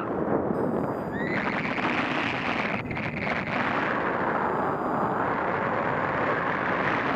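Wind rushing and buffeting over a paraglider pilot's camera microphone in flight: a loud, steady rush.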